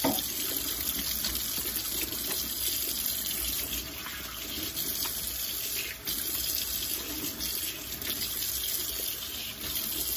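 Kitchen tap running into a sink while hands are rubbed and rinsed under the stream, the water splashing off them into the basin.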